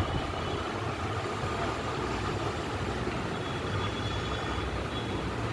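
Steady low rumble and hiss of background noise, with a faint thin high tone partway through.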